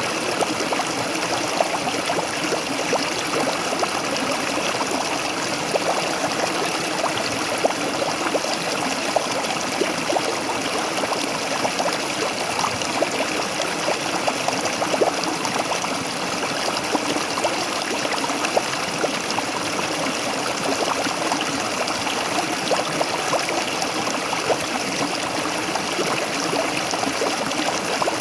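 Waterfall water falling and splashing steadily, a continuous rush with many small splashes and trickles in it.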